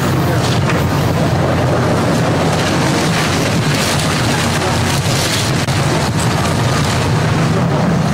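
Hitachi hydraulic excavator demolishing a house: a steady low diesel drone under continuous noisy rumble and crunching of debris.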